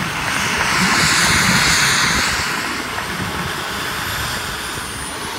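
Model jet turbine (Jet Italia 220N) of a 66% BD5J Microjet running: a loud jet rush that swells to its loudest about one to two seconds in and then eases off, with a thin high turbine whine above it.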